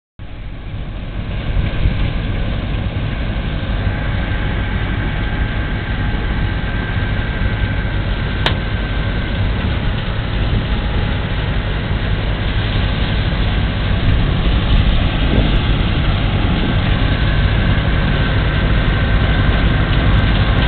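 1972 John Deere 6600 diesel combine running while harvesting rye: a steady drone of engine and threshing machinery with a heavy low rumble and a faint steady whine over it. A single sharp click sounds about eight and a half seconds in.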